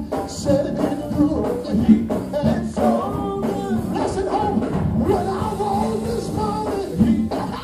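Gospel music: a voice singing over a live band with a steady bass and beat.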